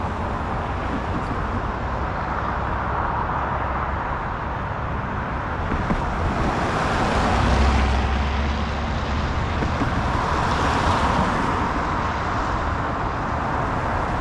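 Road traffic: cars passing close by, their tyre and engine noise swelling twice, about six and about ten seconds in, over a steady hum of traffic.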